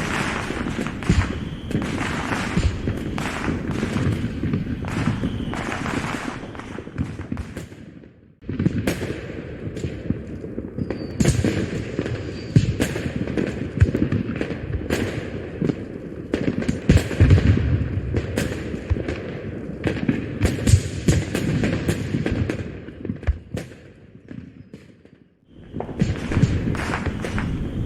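Dubbed-in fireworks sound effect: a rapid, continuous string of aerial shell bursts with crackling and deep thuds. It fades out and stops for a moment about eight seconds in and again near the end, then starts up again each time.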